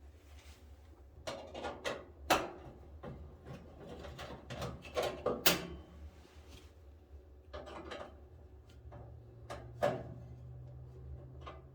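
Irregular metal clicks, knocks and scrapes as screws holding a clothes dryer's heating element are worked loose with a quarter-inch driver. A low steady hum comes in about nine seconds in.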